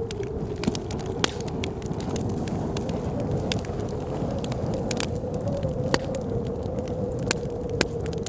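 Wood fire crackling with irregular sharp pops, several of them loud, over blizzard wind: a steady low rumble with a wavering whistle held at one pitch.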